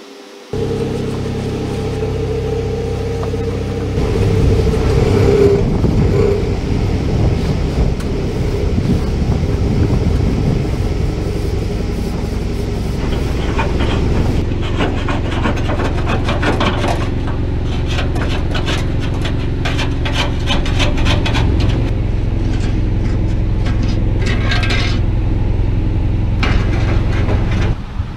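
Scraping and rubbing of a grill being scrubbed clean, over a steady low rumble, with quick repeated scrubbing strokes from about 13 to 25 seconds in.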